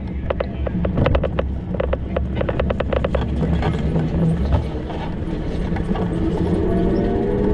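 Road traffic running steadily, with a quick run of sharp clicks over the first three seconds and an engine tone rising near the end.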